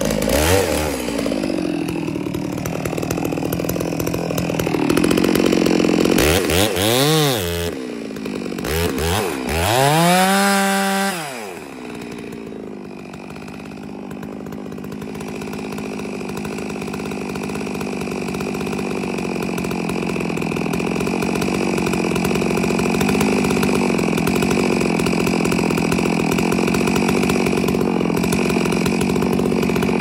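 Two-stroke chainsaw felling a dead standing tree. It is revved up and down about three times in the first dozen seconds, then runs steadily under load through the cut, growing gradually louder.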